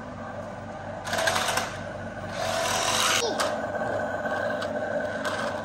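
Small electric motors of a toy RC stunt car whirring, first in two short spurts and then running steadily with a thin high whine.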